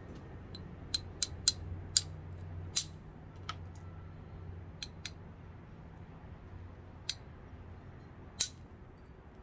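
A flat copper bar striking the edge of a flint biface in percussion knapping: about a dozen sharp, irregularly spaced clicks, the loudest about one and a half and two seconds in.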